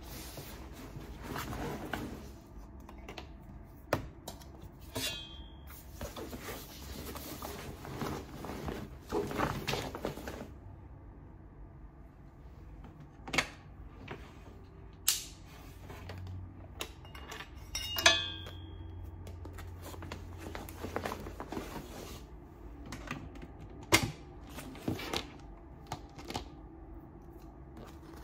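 A fabric backpack being handled and packed: rustling cloth, with several sharp clicks and knocks as things are set in, and twice a brief high metallic ring.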